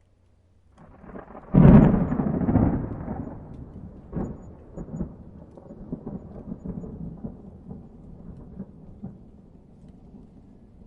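Thunder: out of quiet, a clap builds a little under a second in and cracks loudest about a second and a half in. It then rolls on as a long crackling rumble that slowly dies away.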